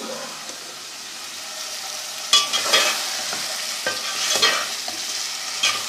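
Potatoes and peas sizzling as they fry in a pot, stirred and scraped with a spatula: a steady hiss at first, then several sharp scraping strokes from about two seconds in.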